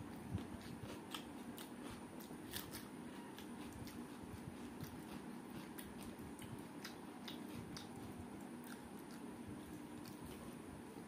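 Quiet hand-eating sounds: fingers mixing rice on a steel plate and chewing, with scattered small crunches and clicks.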